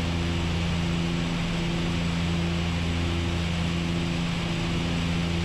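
Steady cockpit drone of a DHC-6 Twin Otter's two Pratt & Whitney PT6A turboprop engines and propellers in cruise-approach power, a constant low hum with even rushing noise and no change in pitch.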